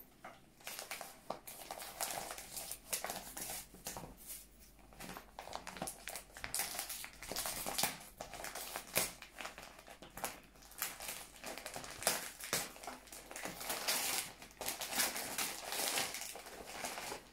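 Gift-wrapping paper crinkling and rustling in irregular crackles as a small wrapped package is pulled open by hand.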